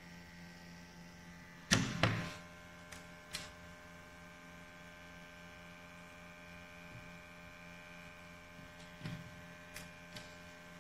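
Small plastic and metal fittings of a gas detector's sampling probe and tubing clicking and knocking as they are handled and fitted together, with a sharp double knock about two seconds in and a few lighter clicks later. A steady hum underneath.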